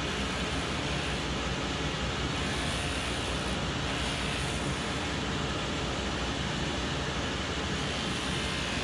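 Cobbler's finishing machine running steadily, its motor and dust extraction making a constant machine noise with a low hum underneath, while a spindle sanding wheel grinds the sole edge of a leather boot.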